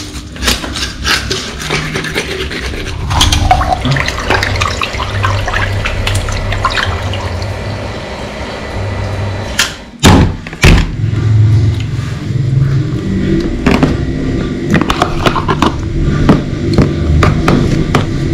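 Water running and splashing from a sink tap while fish are cleaned and rinsed, with scattered clicks and knocks of hands and fish against the tub.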